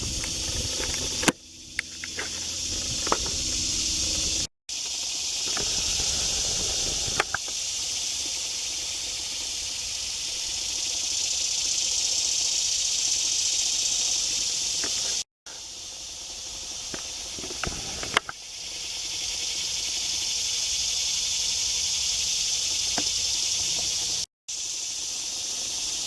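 Steady, high-pitched chorus of summer insects, dipping and swelling back up twice. It drops out briefly three times, with a few light clicks.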